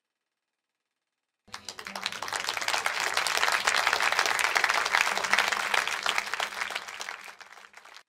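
Crowd applauding: dense clapping that starts abruptly about a second and a half in, swells, then thins out and stops just before the end.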